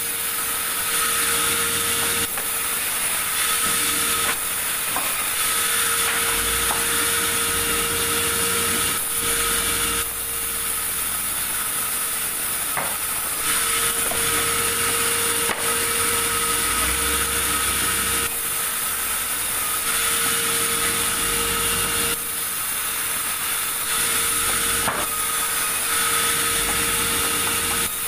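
Sawmill saw running and cutting through large timber, a loud, steady noise with a steady hum underneath and its level shifting every few seconds.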